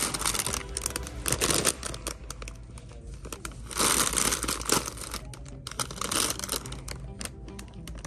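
Plastic chip bags crinkling as they are handled and pulled from a wire basket, in several bursts, the loudest about four seconds in.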